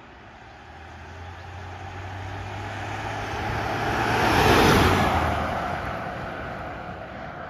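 A car driving past: its engine and tyre noise build up, loudest a little over halfway through, then fade away.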